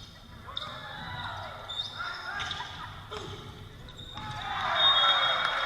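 Volleyball rally sounds on a gym court: short squeaks and a few sharp ball hits, with players' and spectators' shouts swelling loudly about four seconds in.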